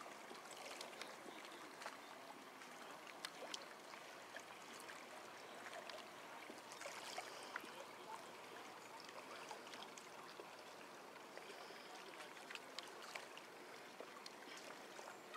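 Faint outdoor water ambience: an even, low-level hiss of moving water with scattered small ticks, and no engine clearly heard.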